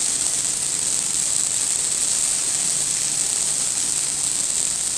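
Skewered chicken pieces sizzling steadily in a little oil on a hot tawa (flat iron griddle).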